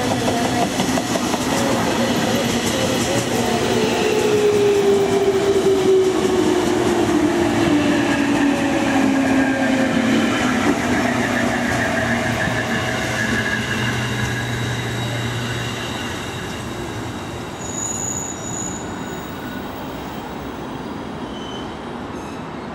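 Electric train braking into a station: a motor whine falls steadily in pitch over several seconds over the rumble of wheels on rail, and the noise slowly fades. A brief high squeal comes near the end.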